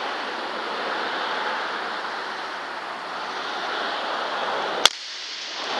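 A steady hiss, then one sharp crack nearly five seconds in: a single shot from a PCP air rifle.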